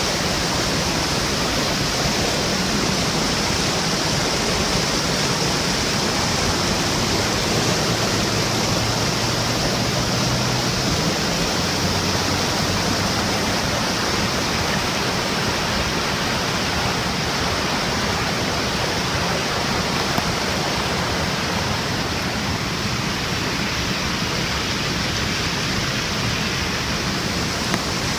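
Floodwater rushing, a steady, unbroken wash of noise.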